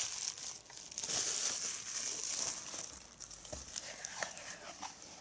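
Plastic wrapping being crinkled and torn off a Blu-ray box set for the first couple of seconds, followed by quieter handling with a few small clicks.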